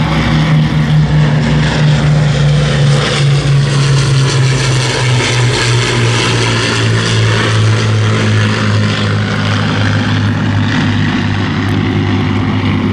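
Avro Lancaster's four Rolls-Royce Merlin V12 engines running as the bomber flies past, the loud engine note falling steadily in pitch as it goes by.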